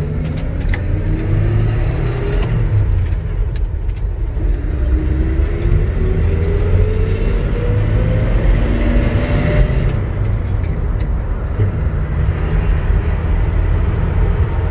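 1967 Chevrolet pickup truck running down the road with a steady low engine and road rumble. A tone in the sound rises as the truck speeds up, falls back about four seconds in, then climbs again for about five seconds.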